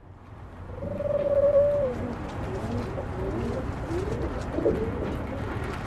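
Homing pigeons cooing. A long warbling coo comes about a second in, followed by shorter overlapping coos, over a steady low background rumble.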